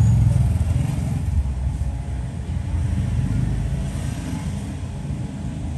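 A steady low rumble with no clear events, loudest in the first second or so and easing off a little.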